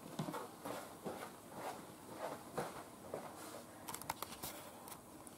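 Faint footsteps and small rustles as someone walks away across a kitchen, with a few light clicks about four seconds in.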